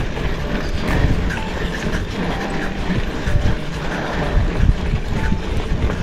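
Mountain bike climbing a dirt road: steady low rumble of tyres over loose dirt with uneven bumps, mixed with wind noise on the microphone.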